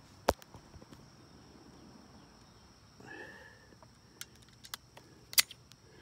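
Footsteps and light rustling in dry leaf litter, with a few sharp clicks; the loudest click comes about five seconds in.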